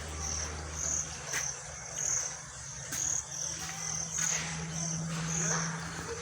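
Crickets chirping, a high pulsing note that repeats about twice a second over a low steady hum, with a few faint knocks.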